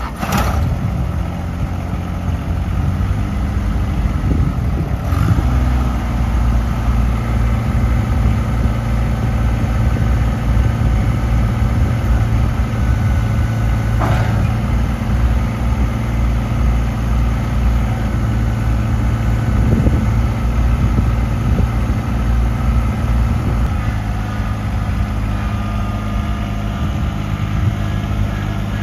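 Kubota BX25D compact tractor's small three-cylinder diesel engine running steadily while the tractor is driven over gravel and dirt, getting louder about five seconds in.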